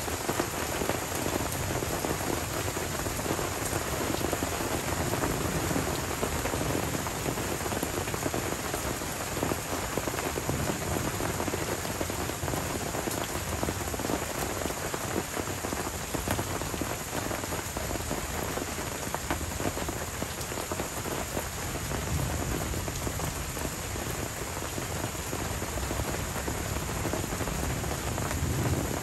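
Steady tropical rain falling on forest foliage and a puddled dirt track, an even hiss of many drops.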